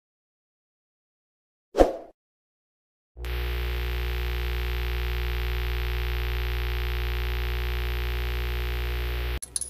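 Edited-in intro sound effects: one short swoosh-like hit, then an electric buzzing hum made of many stacked steady tones with a heavy bass, held for about six seconds under the glitch title text and cut off suddenly near the end.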